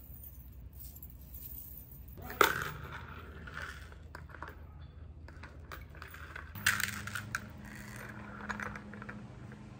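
Metal hanging-planter chains clinking and jangling as they are handled and their hooks fitted into the rim of a plastic pot, with a sharp clink about two and a half seconds in and a cluster of clinks near the end.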